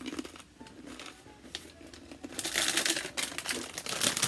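A crisp water cracker being chewed, with small crunching clicks, then a crinkly plastic bag of crackers rustling as it is picked up, loudest about two and a half seconds in and again near the end.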